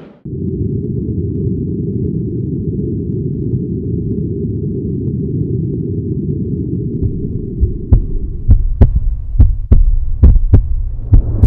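Cinematic logo sound design: a steady low drone, then, starting about eight seconds in, a run of about eight sharp hits with deep thuds coming in quick, uneven succession.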